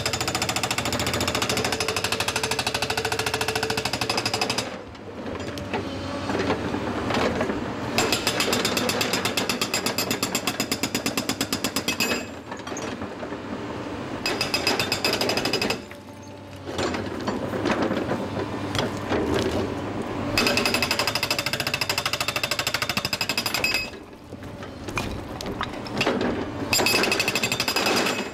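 Epiroc / Atlas Copco MB 1000 hydraulic breaker hammering its chisel into rock, a rapid steady rattle of blows. It runs in bursts of a few seconds, stopping and restarting several times, with quieter machine noise in the short pauses.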